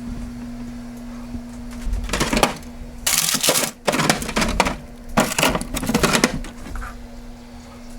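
Several bursts of clattering and rustling from items being moved about in a refrigerator, over a steady low hum.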